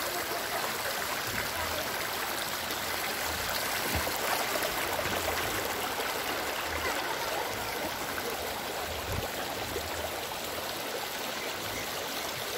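Shallow stream rushing steadily over stones, a continuous even wash of moving water.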